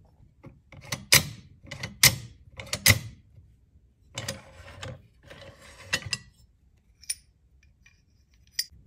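Galil bolt carrier and bolt being forced forward in the steel receiver to mark where the bolt lugs bind during force-matching. Several sharp metal clacks come in the first three seconds, followed by metal sliding and scraping as the carrier is worked back and out, and a couple of lighter clicks near the end.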